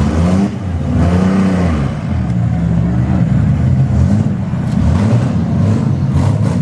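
Engines of several demolition-derby minivans running together, revving up and down.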